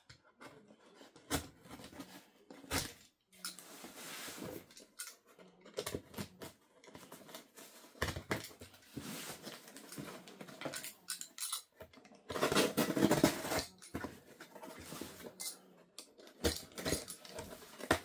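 Cardboard shipping box being handled and slit open with a box cutter drawn through its packing tape: irregular taps, knocks, scrapes and rustling, with a louder, longer scraping stretch about two-thirds of the way through.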